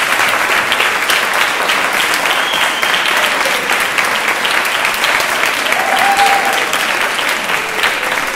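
Audience applauding steadily: many hands clapping in a dense, even stream.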